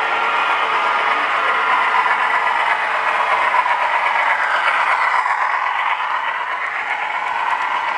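Three-rail model trains running on metal track: a steady rolling clatter of wheels on rail, loudest around the middle as a model diesel locomotive and its cars pass close by.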